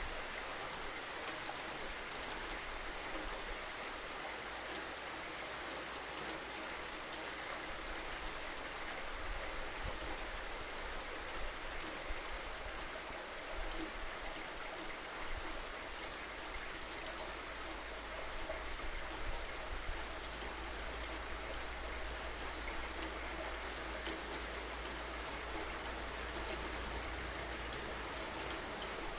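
Steady rain falling, an even hiss of many drops with faint scattered patters, holding level throughout.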